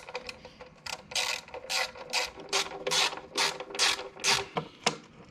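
Hand ratchet tightening a skid-plate bolt: a run of about eight clicking ratchet strokes, roughly two a second, starting about a second in and stopping just before the end.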